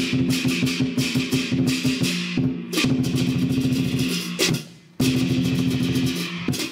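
Lion dance percussion: a large Chinese lion drum beaten in fast strokes, with hand cymbals clashing along and ringing. The playing drops out briefly twice, about two and a half and about four and a half seconds in.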